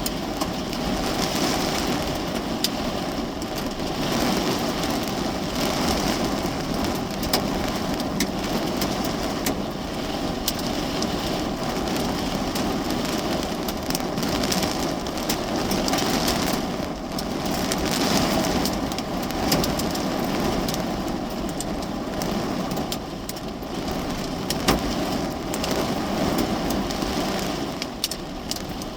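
Heavy rain beating steadily on the roof and glass of a parked car, heard from inside the cabin, with many sharp single taps of drops striking through it.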